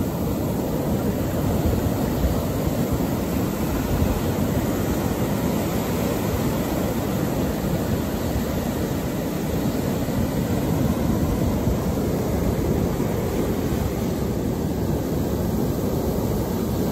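Ocean surf: waves breaking and foamy swash washing up over the sand, a steady rushing noise without a break.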